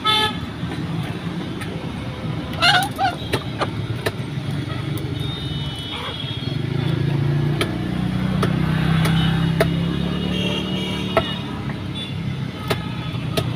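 Irregular sharp knocks of a dao (machete) chopping chicken on a wooden block, over a steady rumble of road traffic that swells as a vehicle passes in the middle. A brief squawk from the caged chickens comes about three seconds in.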